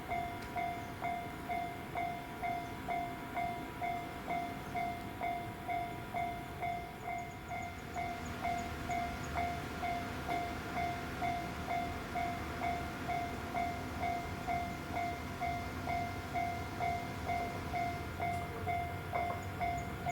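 Railway level-crossing warning alarm ringing steadily, an even repeating ding of about two strokes a second, signalling that the crossing is closed for an approaching train.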